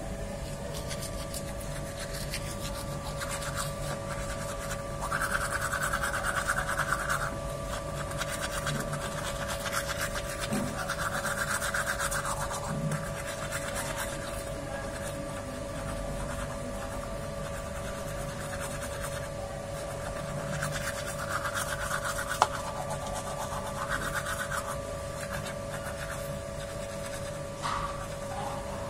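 Toothbrush scrubbing teeth in spells of a second or two, over a steady background hum.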